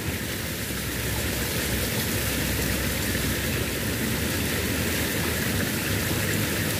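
Steady rushing of flowing water in a small stream, an even hiss with no changes.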